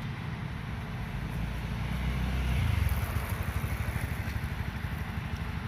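Motorcycle engine running nearby, its low rumble growing louder about two to three seconds in and then settling into a fast, even pulsing.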